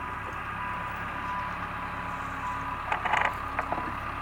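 Backhoe engine running steadily, with a short cluster of sharp knocks about three seconds in.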